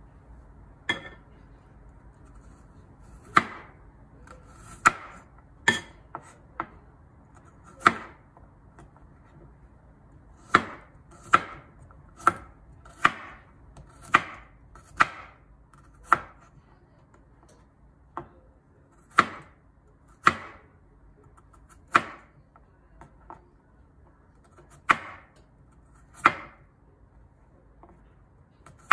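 Kitchen knife slicing garlic cloves on a wooden cutting board: about twenty sharp knocks of the blade meeting the board, at an uneven pace of roughly one a second.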